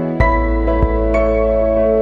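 New-age background music: sustained chords with notes struck at intervals, a new chord with a deep bass coming in just after the start.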